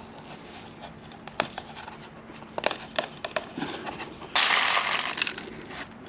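Whole coffee beans poured from a bag into the stainless steel cup of a BLACK+DECKER blade coffee grinder: a dense rattle lasting about a second and a half near the end. Before it come a few light clicks and taps as the grinder cup is handled and emptied.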